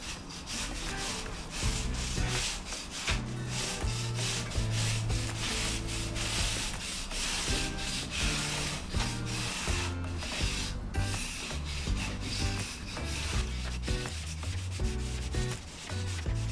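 Stiff wire brush scrubbing patio paving in quick repeated strokes, with low bass notes of background music underneath.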